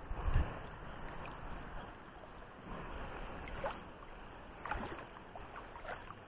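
Shallow seawater sloshing and lapping around a wading angler, with a few small splashes. There is a low bump about half a second in.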